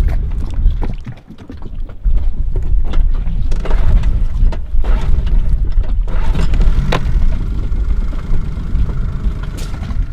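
Small outboard motor on an inflatable dinghy running as the dinghy gets under way, a low rumble that dips briefly about a second in and comes back up sharply at about two seconds.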